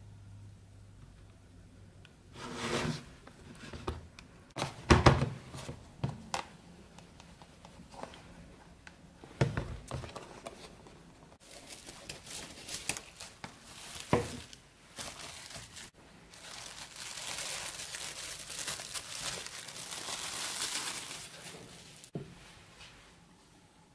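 A spoon knocking and scraping in a plastic food container as thick cooked orange pudding is spread flat, with several separate knocks, the loudest about five seconds in. Later comes a stretch of several seconds of crinkling plastic.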